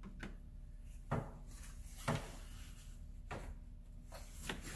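Several short knocks and rubbing as a replacement car radiator is worked down into its mounting grommets, with the two loudest knocks about one and two seconds in.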